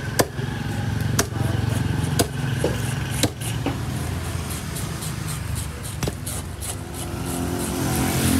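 Heavy cleaver chopping through a milkfish into a wooden chopping block: four sharp chops about a second apart, then one more about six seconds in. Under the chops runs a steady low engine hum that grows a little near the end.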